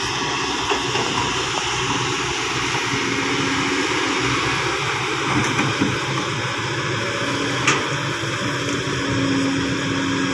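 Kobelco SK200 crawler excavator's diesel engine running steadily under hydraulic load as the arm swings back from the truck and lowers the bucket to dig into the soil. A single sharp click sounds about three-quarters of the way through.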